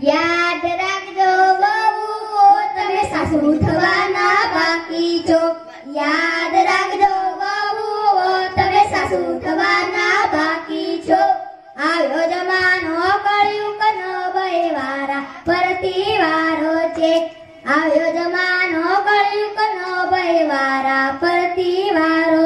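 A child's voice singing a Gujarati qawwali, in long melodic phrases with short breaks between them.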